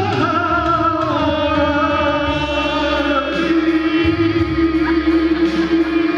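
A man singing into a handheld microphone over backing music, his voice carrying vibrato and settling into one long held note about halfway through.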